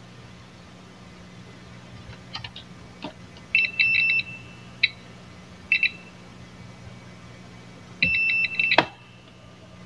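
Multimeter continuity buzzer beeping in short, broken bursts as the probes touch a diode's leads, with probe clicks in between; the beep shows continuity across the diode, a sign of a shorted diode or short on the board.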